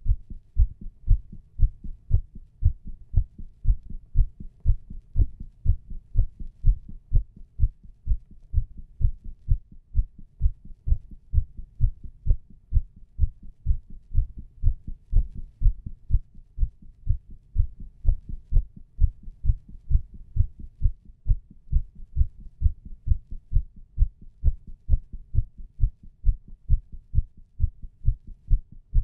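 A human heartbeat heard through a stethoscope chest piece pressed on the chest: steady, regular lub-dub beats, low and muffled.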